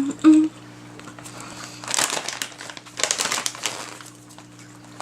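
Plastic chip bag crinkling in two short bursts, about two and three seconds in, as a hand goes into the bag of chips.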